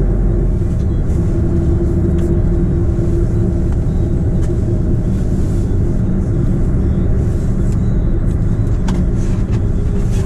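Heavy truck's diesel engine running steadily as the truck pulls slowly away. It makes a continuous low rumble with a droning hum, and a few faint clicks and knocks are heard here and there.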